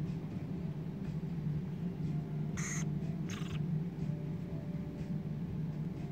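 Two short, harsh squawks from a varied lorikeet chick, about half a second apart, over a steady low hum.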